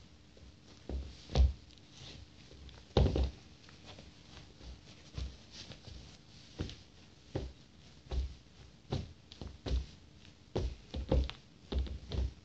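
A socked foot stepping and pressing into a Nike Air Force 1 leather sneaker, making a dozen or so irregular dull thumps and knocks. The two loudest come about a second and a half and three seconds in.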